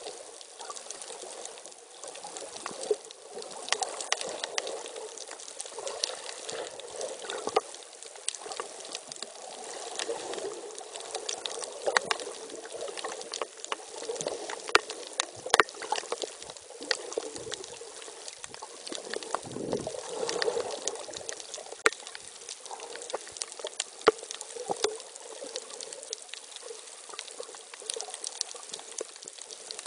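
Water rushing and gurgling around a camera held underwater, with scattered sharp clicks and pops throughout.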